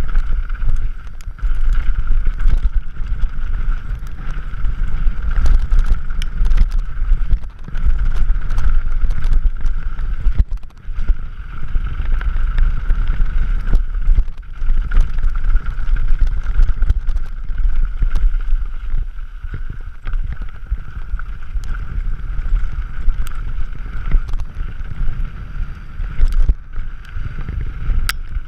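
Wind buffeting the camera microphone as a Scott Gambler 720 downhill mountain bike runs fast down a gravel track, with many sharp rattles and clicks from the bike and tyres over the stones and a steady high hum.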